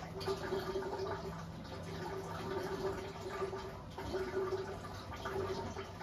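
Front-loading washing machine tumbling wet laundry at low speed: water sloshing in the drum over a motor hum that comes and goes, well before the spin.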